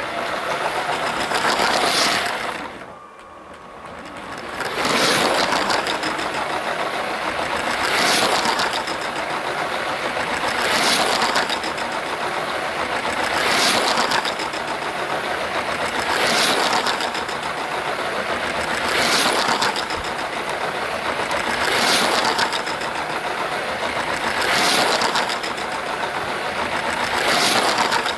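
Battery-powered LEGO City passenger train (set 60197) running on plastic LEGO track: its small electric motor whirs and the wheels rattle over the track. The sound grows louder and fades again about every three seconds as the train laps the circuit, with a quieter spell about three seconds in.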